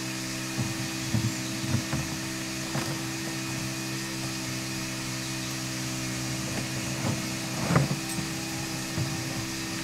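A winch motor running at a steady hum while it hauls hydro pipe up a rocky stream bed, with scattered knocks and scrapes as the pipe end drags over the stones; the loudest knock comes near the end.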